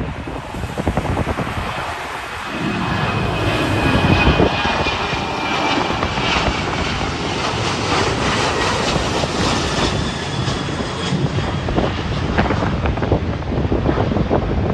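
Jet airliner passing, its engine whine falling slightly in pitch, under a steady rush of jet noise and wind buffeting the microphone.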